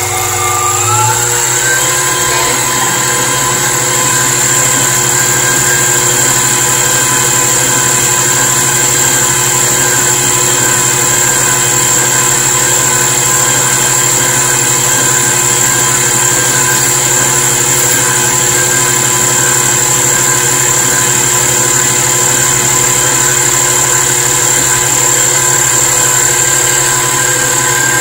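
Princess House stand mixer motor running, its flat beater kneading tamale masa in the steel bowl. The whine rises in pitch about a second in as the speed goes up, then holds steady.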